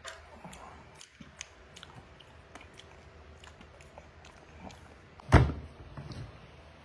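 Person chewing fruit, with small mouth clicks and smacks scattered throughout, and one loud low thump about five seconds in.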